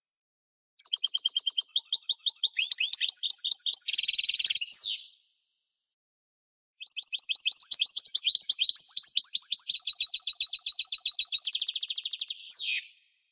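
European goldfinch singing: two long phrases of rapid, high twittering trills and chattering notes, each ending in a sharp downward-sweeping note, with a pause of about a second and a half between them.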